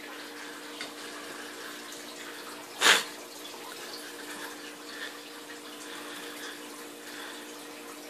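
Steady background hiss with a faint low hum, broken by one short, loud rushing burst about three seconds in.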